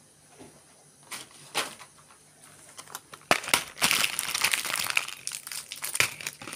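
Crinkling and rustling of something being handled close to the microphone. A few separate clicks come first; from about halfway it turns into a dense, continuous crackle.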